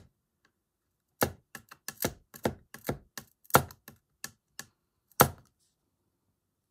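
Pieces of thin glass being handled on a cutting mat, clicking and tapping: about a dozen sharp, uneven taps that start about a second in and stop about five seconds in.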